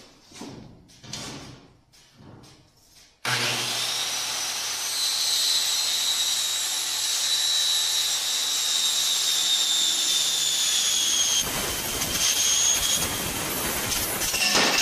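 A corded handheld power tool cutting through sheet aluminum: after a few light handling knocks, it starts abruptly about three seconds in and runs with a steady high whine over a harsh cutting noise. Its pitch shifts slightly a few seconds before the end.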